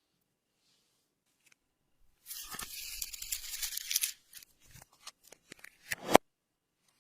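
Slime being worked by hand: about two seconds in, a dense sticky crackling runs for about two seconds, then scattered clicks follow and a sharp snap cuts off suddenly near the end.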